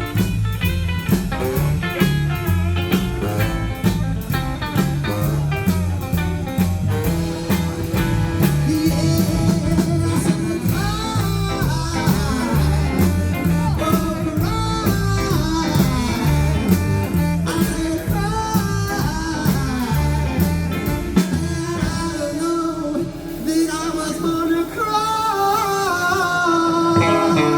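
Live rock and roll band playing with a steady driving beat, guitar and a lead line that bends in pitch. The low end drops away briefly about 23 seconds in, then the full band comes back louder near the end.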